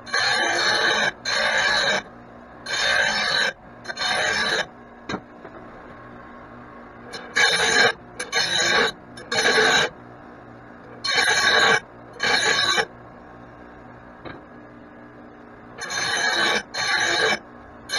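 A power tool at the workbench run in short, sharp bursts of under a second, mostly two or three in quick succession with pauses between, while mower blades are being worked on.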